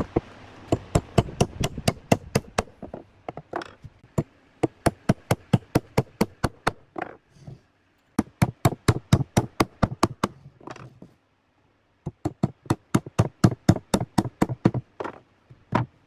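Claw hammer driving nails into wooden boards: runs of quick, sharp blows, about four or five a second, broken by short pauses between nails.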